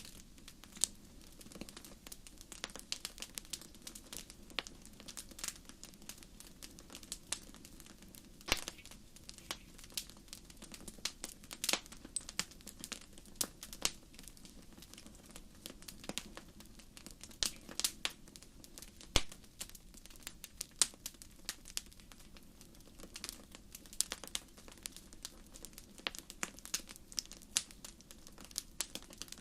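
Wood fire crackling in a fireplace: a dense, irregular run of sharp pops and snaps over a soft, steady low rush.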